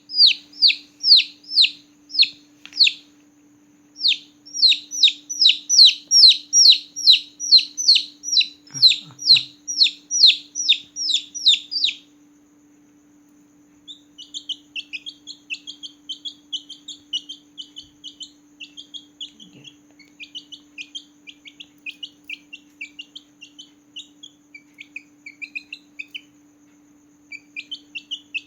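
Newborn chicken chicks peeping loudly: evenly spaced falling peeps, about two a second, for most of the first half. After a brief pause comes a quicker run of softer, shorter chirps. A faint steady hum runs underneath.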